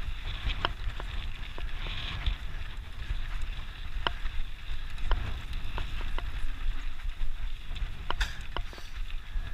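Mountain bike ridden over dry dirt and gravel singletrack: wind rumbling on the camera's microphone, the tyres running on loose ground, and scattered sharp clicks and rattles from the bike over rough ground.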